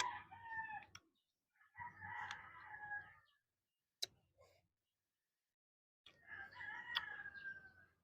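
Rooster crowing three times, each crow a drawn-out call that droops in pitch at the end, with a few sharp clicks in between.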